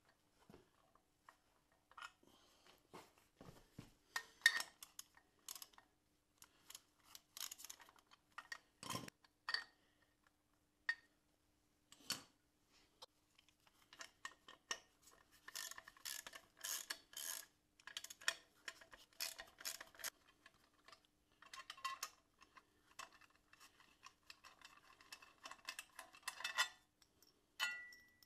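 Intermittent metallic clinks, clicks and scraping from a thin homemade steel bracket, bolts and hand tools being fitted against the harmonic balancer of a Volvo V8 engine. A faint steady hum runs under it.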